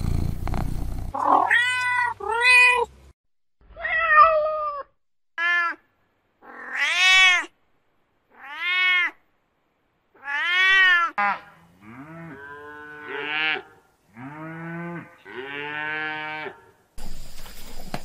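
Cats meowing: about a dozen separate meows, each rising then falling in pitch, the later ones lower and more drawn out. A short burst of noise opens, and a steady outdoor background starts near the end.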